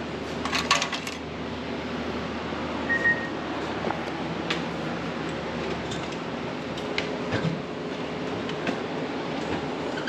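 Clinks and taps of metal hand tools against the tractor's steelwork: a quick cluster about half a second in, then scattered single ticks. A steady hum, likely a shop air conditioner, runs underneath.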